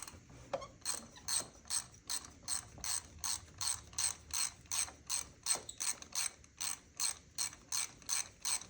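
Ratchet wrench clicking steadily, about three clicks a second, as it is worked back and forth to unscrew a loose spark plug from a 2010 Chevy Traverse engine.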